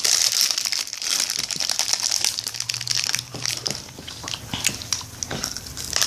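Crinkling of a plastic Rice Krispies Treats wrapper being handled. It is densest for the first few seconds, then thins to scattered crackles.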